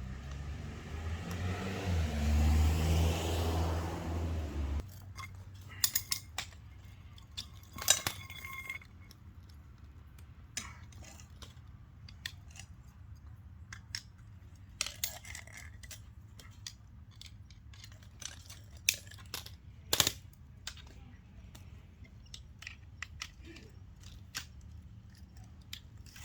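Metal clicks and clinks of hose fittings and a spray-gun coupling being handled and connected, scattered irregularly with quiet gaps between. In the first few seconds a louder rushing noise with a low rumble stops suddenly.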